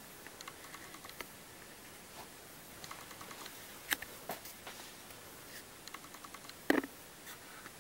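Faint handling noise: scattered light clicks and taps, with one sharper knock near the end.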